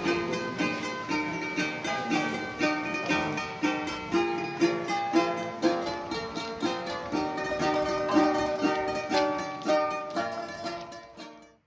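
Background music: a light plucked-string tune, ukulele-like, with quick notes, fading out near the end.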